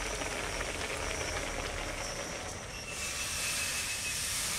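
Hot water hissing as boiled, chopped banana flower is drained from an aluminium kadai into a plastic colander; the hiss gets brighter about three seconds in.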